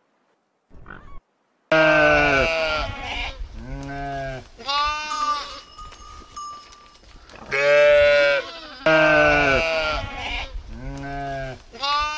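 A mixed flock of sheep and goats bleating: loud, wavering bleats one after another, some overlapping, starting abruptly about two seconds in.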